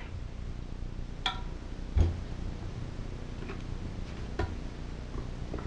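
Workbench handling noise: a few scattered clicks and knocks as a small-engine cylinder block and an oil bottle are picked up and set down. The loudest is a dull knock about two seconds in.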